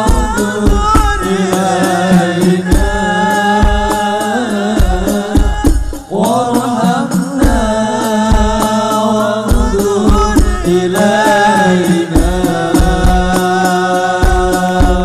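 Live hadroh sholawat music: voices singing a devotional melody over rebana frame drums and other hand drums beating a steady rhythm. The singing breaks off briefly about six seconds in, then goes on.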